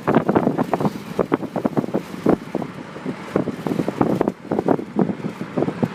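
Wind buffeting the microphone through an open car window while driving, an irregular rapid flutter over the car's road noise. No siren is heard.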